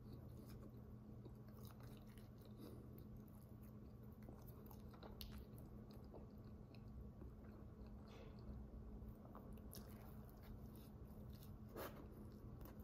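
Faint chewing and mouth sounds of a man eating a microwaved White Castle cheese slider, with small wet clicks over a low steady hum.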